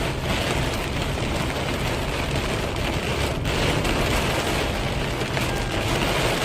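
Heavy rain falling, a loud steady hiss of rain on surfaces.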